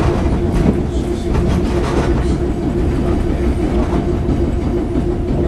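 Interior running noise of South Shore electric interurban car #30: a steady low rumble with a constant hum, and scattered clicks and knocks from the wheels and car body.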